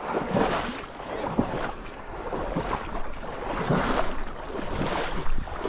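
Someone wading through shallow marsh water in waders, with water splashing and sloshing at each step in repeated swishes about a second apart.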